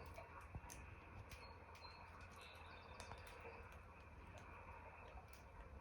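Near silence: low room hum with a few faint, scattered ticks.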